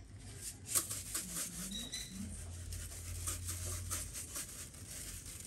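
Coarse garlic salt being shaken from a shaker bottle onto raw beef ribs: a series of soft, crisp rattling shakes, faint under a low background hum.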